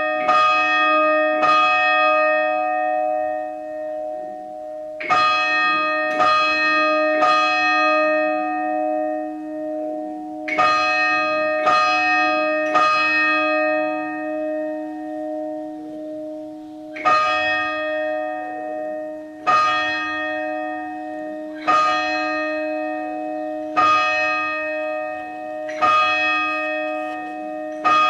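A single church bell rung by hand with a rope, each stroke ringing on long. It strikes three groups of three, then single strokes about every two seconds.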